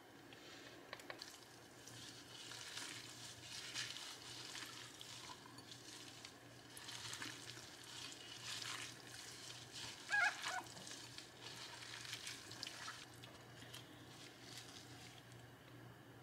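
Food frying in a hot pan, the sizzle swelling and fading in bursts, with a short squeak about ten seconds in.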